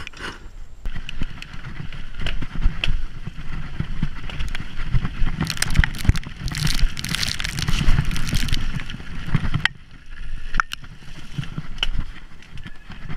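Mountain bike ridden fast down a dirt trail, heard from a camera on the bike or rider: wind rumbling on the microphone, tyre noise on dirt and the bike rattling over bumps. It is loudest in the middle and eases off sharply just before ten seconds in.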